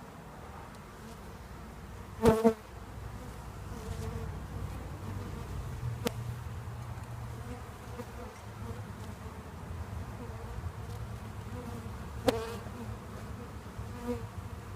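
Honeybees buzzing steadily in a freshly installed hive, stirred up by the handling. Three sharp knocks break in, the loudest about two seconds in, the others near the middle and later on.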